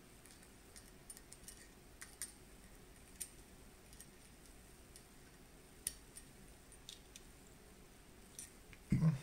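Scattered light metal clicks and ticks as needle-nose pliers work the hammer striker down into a steel shotgun receiver, with a dull thump near the end.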